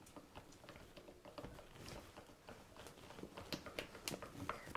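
Spoon stirring melted chocolate chips in a bowl: faint, irregular clicks and scrapes.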